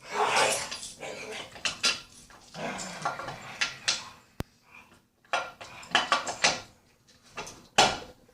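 Steel transmission parts, gears and drive chain, clinking and clattering against each other and the case as they are fitted together by hand: a string of short, sharp metallic clinks. Dogs playing are heard at the same time.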